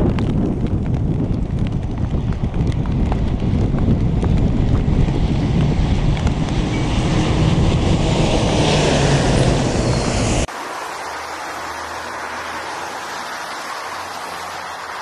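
Heavy wind buffeting the microphone over the rumble of a large four-engine jet on the runway, with the jet noise swelling about eight seconds in. About ten seconds in the sound cuts abruptly to a quieter, steady rush.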